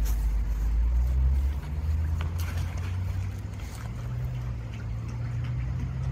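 A motor running with a steady low hum that steps up in pitch about one and a half seconds in, with a few faint light clicks over it.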